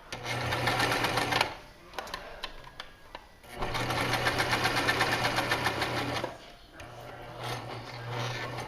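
Janome HD1000 sewing machine running a straight stitch in three runs: a short burst at the start, a longer run from about three and a half seconds in, and a softer run near the end, with brief pauses between them.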